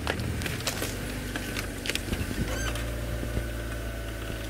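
Safari vehicle's engine idling with a steady low hum, scattered short clicks and snaps over it.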